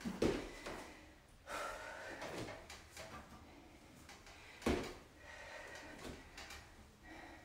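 Footfalls during dumbbell step-ups: feet landing on a padded weight bench and the floor, with two louder thumps, one just after the start and one about four and a half seconds later.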